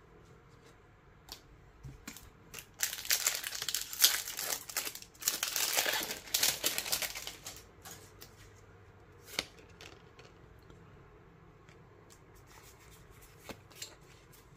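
A foil Pokémon booster pack wrapper being torn open and crinkled for a few seconds, then a few light clicks and rustles of trading cards being handled.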